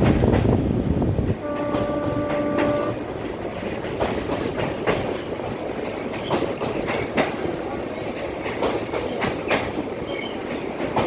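Train wheels clattering over the track on a bridge: heavy rumble at first, then steady running noise with irregular clicks and knocks from the rail joints. About a second and a half in, the train's horn sounds one steady blast lasting about a second and a half.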